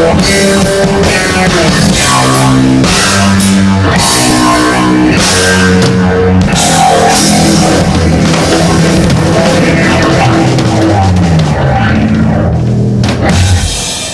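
Electric bass played through a jet phaser effects pedal, a run of pitched bass notes over a rock drum beat. The playing fades out near the end.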